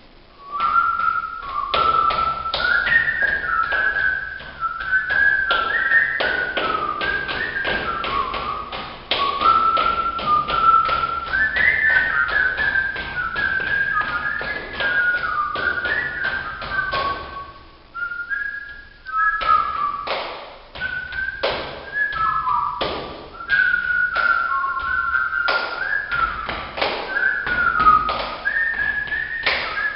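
A tune whistled by mouth over a quick, uneven rhythm of taps and slaps: music made with the body alone, body percussion. The whistling breaks off briefly about two-thirds of the way through, then resumes.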